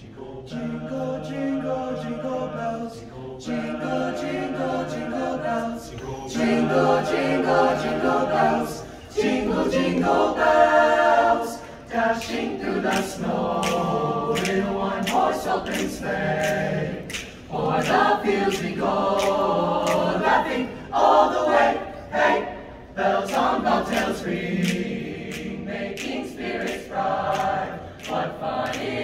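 Mixed-voice choir singing a cappella in harmony, holding chords in phrases of a few seconds with short breaks between them.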